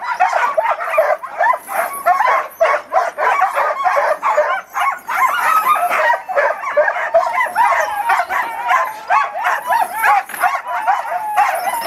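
Many huskies barking and yipping at once in a continuous din, excited and eager to go while being hooked up to run.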